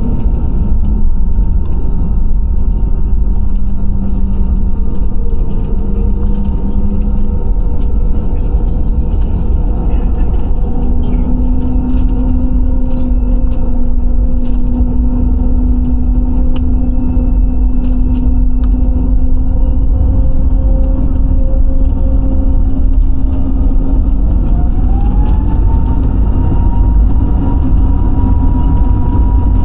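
Airliner engines heard from inside the passenger cabin: a loud, steady low rumble with engine whine tones on top. One tone rises in pitch about three-quarters of the way through and then holds.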